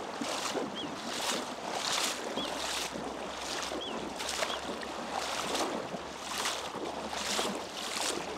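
A person wading through shallow water: rhythmic swishing and sloshing as the legs push through it, about one stride a second.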